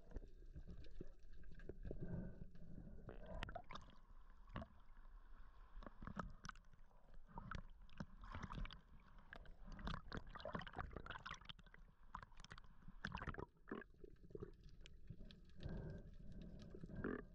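Faint, muffled underwater sound through a waterproof camera housing: a low rumble with many scattered clicks and crackles as a spearfisher swims.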